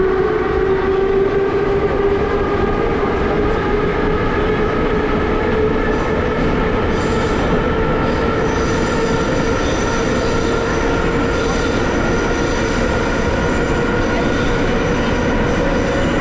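Moscow metro Ezh3-series car running, heard from inside the saloon: a steady rolling rumble with a motor whine that slowly rises in pitch as the train gathers speed. A thinner high whine joins it about halfway through.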